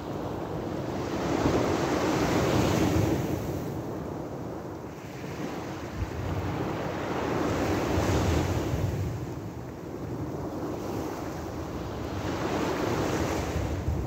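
Small sea waves breaking and washing up a pebbly beach, the surf swelling and fading three times, about every five seconds.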